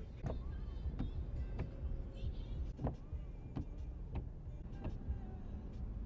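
Steady low rumble of a moving vehicle, with sharp knocks every half second to second.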